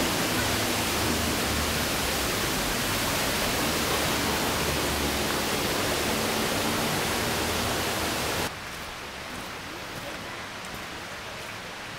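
Creek water rushing over rocks, a loud, steady hiss. About two-thirds of the way through it drops suddenly to a quieter, softer hiss.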